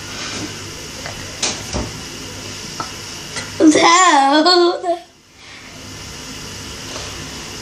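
A girl's voice makes one wavering, sing-song sound lasting about a second and a half, its pitch rising and falling repeatedly, a little after the middle. Before it there are only faint rustles and small clicks of movement.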